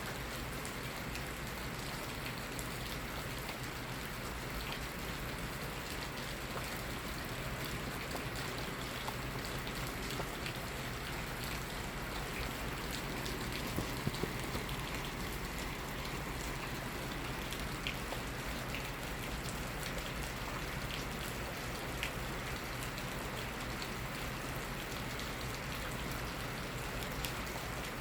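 Steady rain falling, a constant even hiss with scattered sharper ticks of individual drops hitting a nearby surface.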